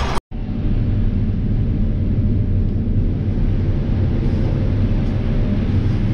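Combine harvester running steadily while harvesting corn, heard from inside the cab: an even low rumble with a faint steady hum. It begins after a brief break near the start.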